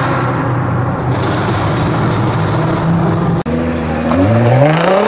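Nissan GT-R engine running with a steady drone, then after a sudden break about three and a half seconds in, the engine revving up with its pitch climbing steeply.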